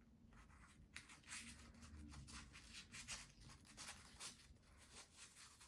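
Faint crinkling and rubbing of a crepe-paper petal being worked through a fold and form tool, a string of soft crackles from about a second in.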